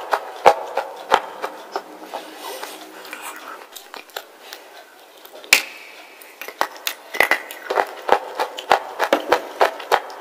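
Close-miked crunching of a wet slate bar being bitten and chewed: a run of sharp crunches, a quieter stretch, one loud snap about five and a half seconds in, then rapid crunching again.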